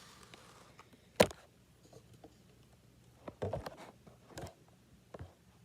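A few short knocks and clicks of objects being handled: one sharper knock about a second in, then a small cluster of lighter ones past the middle.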